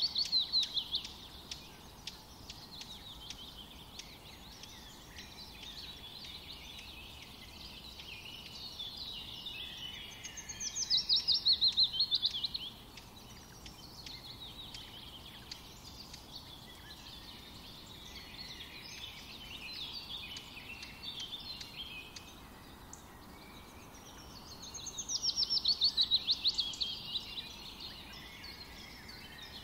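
Birdsong: steady high chirping, with a loud run of rapid falling trill notes at the start, again about ten seconds in, and again about twenty-five seconds in.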